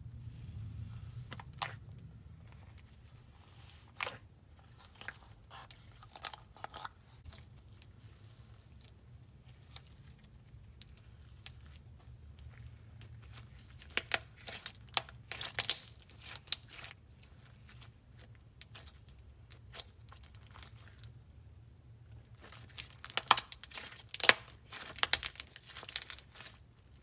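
Thick, glossy slime being stretched, squeezed and pressed by hand, giving scattered sticky clicks. Two stretches of dense crackling come about halfway through and again near the end.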